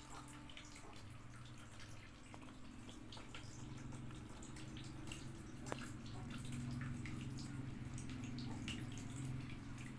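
Himalayan kitten lapping milk from a shallow lid: many quick, wet tongue clicks, over a steady low hum.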